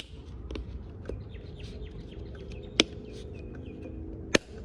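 Sharp clicks of small carburettor parts being handled and fitted together by hand, three loudest at the start, almost three seconds in and just before the end. Birds chirp in the background.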